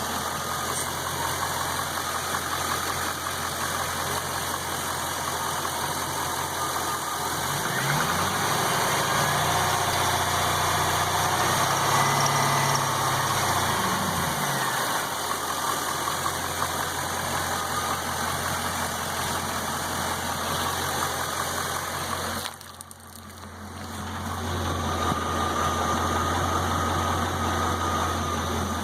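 Chevrolet LS1 5.7-litre V8 in a high-mileage Camaro running at idle, with the knock the owner is recording. Revved once, rising and falling again, between about 8 and 15 seconds in. About 22 seconds in the sound drops suddenly and builds back over a couple of seconds.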